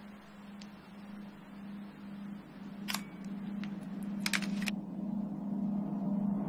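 SLR camera shutter clicking: a single click about three seconds in, then a quick cluster of clicks a second or so later. A low steady hum grows gradually louder underneath.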